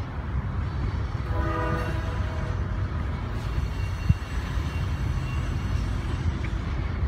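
Coal train cars rolling past with a steady low rumble. About a second and a half in, a train horn sounds briefly, and a single sharp click comes about four seconds in.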